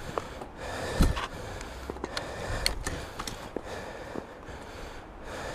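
Clicks, rattles and rubbing from a Trek 3900 mountain bike whose chain keeps coming off the gears, with a dull thump about a second in.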